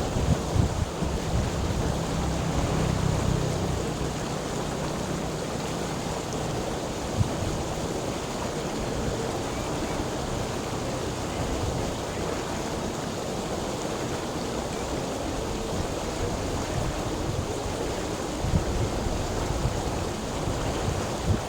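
Flowing water rushing steadily, with a deep rumble and a few brief low thumps.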